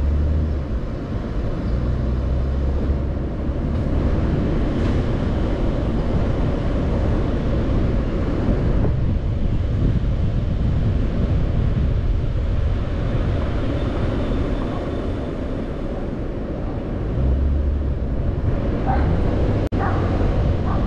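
A car driving along a city street: a steady engine and tyre drone. A deeper engine hum is stronger for the first few seconds and swells again near the end. The sound cuts out for an instant just before the end.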